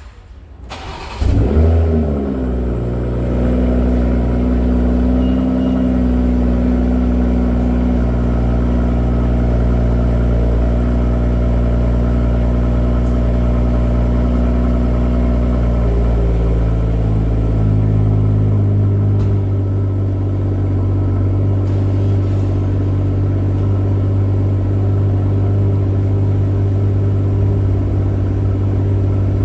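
BMW M340i LCI's stock 3.0-litre turbocharged inline-six warm-started: the starter cranks briefly about a second in, the engine flares up, then settles to a steady idle. About two-thirds of the way through the idle drops to a lower, deeper pitch.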